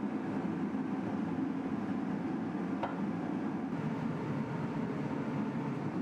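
Propane tank-top radiant heater's burner running with a steady low rushing noise. A single faint click about three seconds in.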